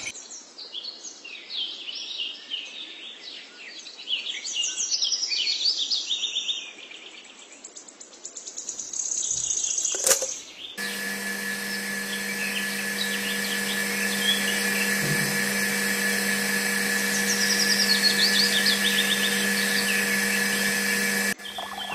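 Birds chirping, then a click about ten seconds in as a 9V battery clip is snapped on, and a miniature DC-motor water pump starts running with a steady hum and whine while the birdsong goes on over it. The hum cuts off abruptly near the end.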